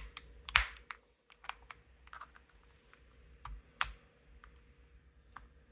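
Scattered plastic clicks and ticks as an Xbox One controller's side panel is pried at its snap clips, with two louder snaps, one just over half a second in and one near four seconds in.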